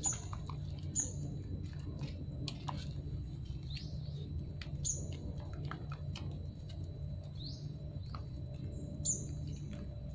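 Puppies suckling at their mother's teats, with small wet smacking clicks, while small birds give short, high chirps every second or two over a steady low hum.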